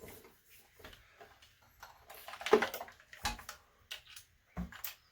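Handling noises from unpacking an air compressor: scattered clicks and rustling, a louder scraping rustle about halfway through, then a couple of dull knocks.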